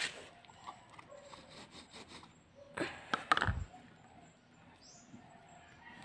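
A hand digging and scratching in dry rice-husk potting mix, a dry rustling with scattered small clicks. About three seconds in comes a louder cluster of scrapes ending in a dull thump.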